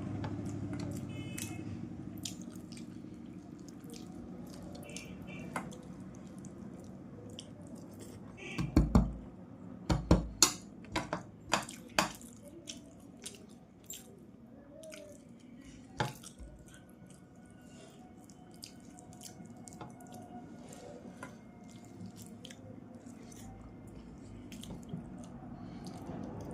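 Close-up eating sounds of fish curry with rice: wet smacking and chewing clicks. A cluster of louder knocks comes about nine to twelve seconds in, with one more a few seconds later.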